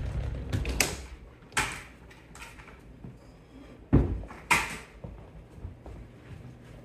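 Work sounds in a small room: a few sharp knocks and clatters from boots and handled tools and buckets. The loudest is a heavy thud about four seconds in.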